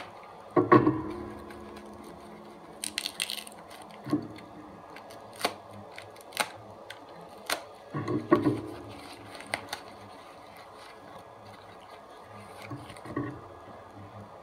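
Unboxing handling noises from small craft-supply packages: scattered clicks and taps, a brief crinkling rustle about three seconds in, and two heavier knocks with a short ring about a second in and about eight seconds in.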